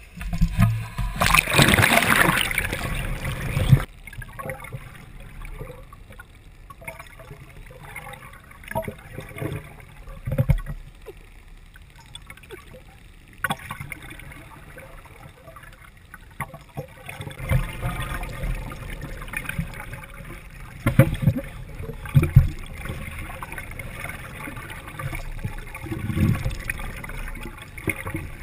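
Sea water splashing and rushing over the camera at the surface for the first four seconds, cutting off abruptly as it goes under. Then a muffled underwater wash of sloshing and bubbling, with scattered low thuds and a few sharp knocks.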